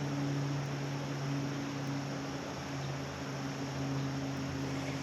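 Steady rush of flowing creek water, with a low, steady hum underneath.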